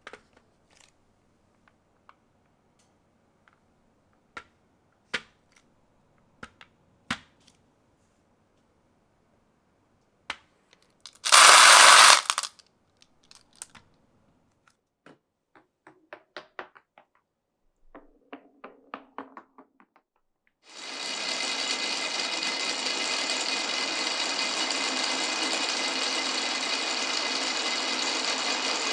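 Glass marbles clicking and clacking along a wooden marble run, with one loud rushing noise lasting about a second around eleven seconds in. From about twenty-one seconds a small electric motor starts and runs steadily.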